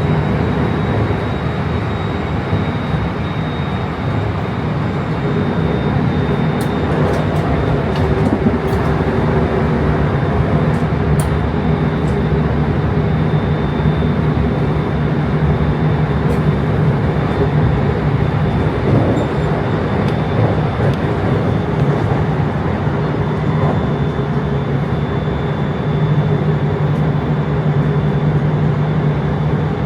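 Train running steadily: a continuous rumble with a steady hum, and a few faint ticks about a third of the way through.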